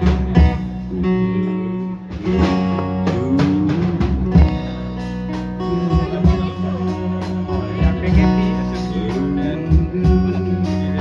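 Live band music: a man singing into a microphone over amplified guitar and a steady bass line.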